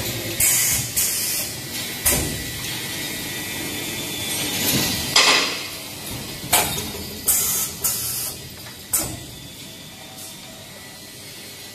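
NER2D-2 2D CNC wire bending machine running, with a string of short, sharp, hissy bursts at irregular intervals of about a second. Near the end the bursts stop and only quieter steady running is left.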